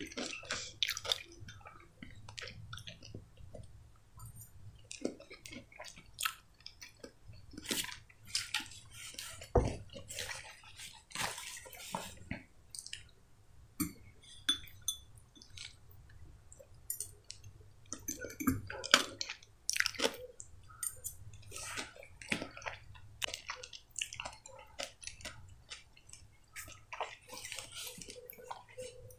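Close-up chewing and wet mouth sounds of someone eating mashed potato and tomato salad: irregular smacks and clicks, with a fork now and then scraping or tapping the bowl.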